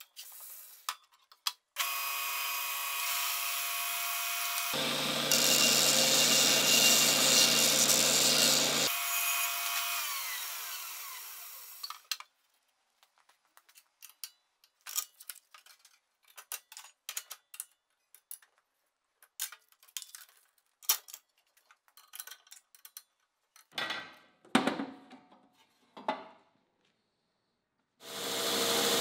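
2x72 belt grinder, a Wilton Square Wheel now fitted with a 4-inch drive wheel, switched on and running with a steady whine. It grows louder and rougher for a few seconds, then is switched off and its whine falls as it spins down. Scattered clicks and taps of hand tools on the machine follow, and near the end the grinder runs again.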